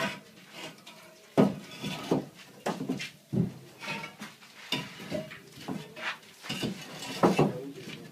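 Hard objects knocking and clinking against each other in an irregular series of sharp knocks, consistent with concrete hollow pots (floor blocks) being handled and set in place.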